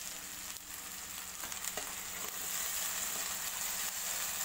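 Fresh curry leaves and ginger-garlic masala paste sizzling in hot oil in a kadhai, stirred with a steel ladle. The sizzling grows a little louder about halfway through.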